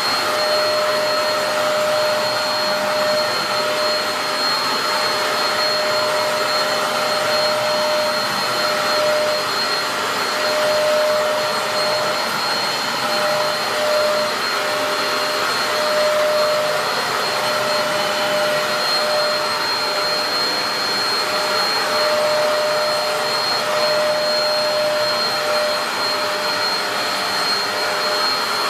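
Dyson DC03 upright vacuum cleaner with a 700-watt motor running steadily while vacuuming carpet: a continuous rushing hum carrying two steady high whistling tones.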